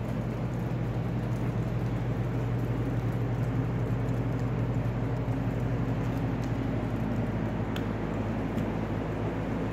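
Steady low droning hum with a hiss over it, unchanging throughout, with a faint click or two.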